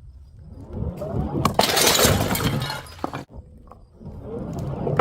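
A glass bottle smashing: a sudden loud crash about a second and a half in, with breaking glass rattling on for over a second before it cuts off abruptly.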